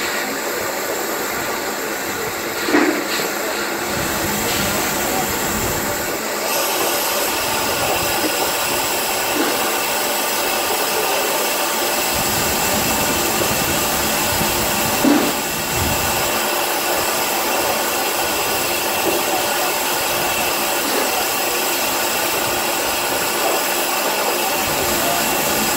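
Steady hiss of steam from a stationary small tank steam locomotive, with two brief louder sounds about three seconds in and again about fifteen seconds in.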